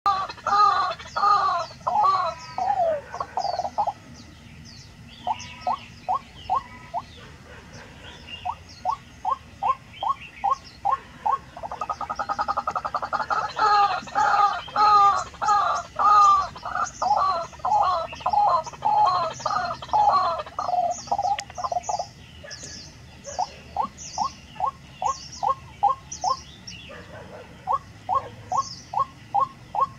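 White-breasted waterhen calling in long series of loud, rapid, repeated notes, about four a second, with a few short pauses between series. Thin, higher chirps run faintly above.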